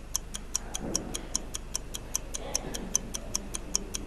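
Game-show countdown timer ticking, about five quick ticks a second, marking off the seconds left for an answer.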